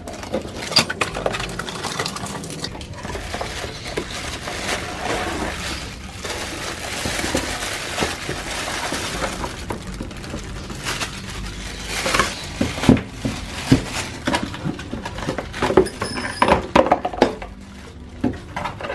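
Unboxing handling: a cardboard power-drill box opened by hand and plastic-bagged contents pulled out, with crinkling plastic, cardboard flaps scraping and a run of sharp clicks and knocks in the second half.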